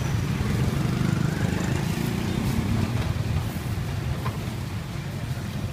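Steady low mechanical rumble, like a running engine or motor, with a few faint clicks.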